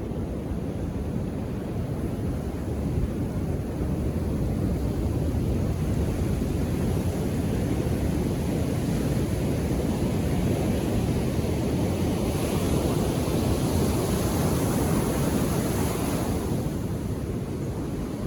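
Ocean surf on a beach: a steady low rumble of waves, with one wave breaking and washing in as a louder hiss about two-thirds of the way through, fading a few seconds later.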